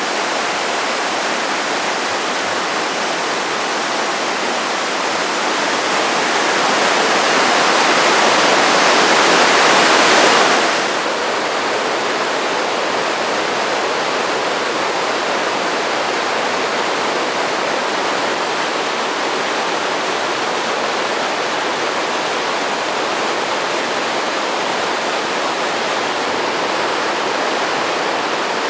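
Mayagusuku Falls, a jungle waterfall on the Itajiki River, rushing with a steady roar of falling water. It grows louder for a few seconds, then drops back abruptly about eleven seconds in.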